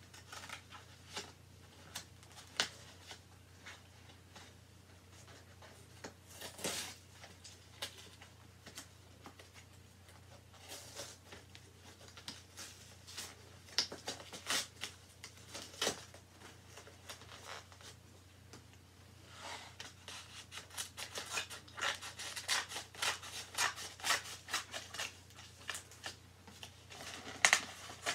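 A cardboard shipping package being cut and pried open with a small blade: irregular scratchy cutting and scraping strokes with sharp clicks, coming in bursts and busiest in the last third, with the loudest click near the end.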